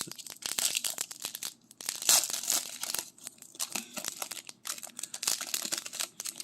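Foil hockey card pack wrapper being torn open and crinkled by hand, an irregular crackling in several bursts, the loudest about two seconds in.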